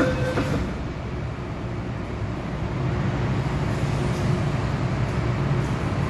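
MTR M-Train electric multiple unit pulling away from a station platform, heard from inside the car: a steady low rumble of motors and wheels that builds a little about halfway through as the train gathers speed.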